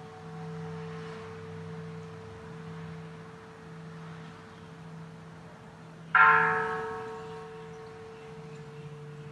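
Kansho, the Japanese Buddhist temple bell, hummed on from an earlier strike, then struck once about six seconds in. The new strike rings out with several partials and fades slowly.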